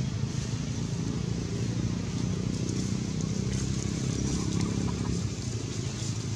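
A steady low motor rumble, easing off slightly about five seconds in.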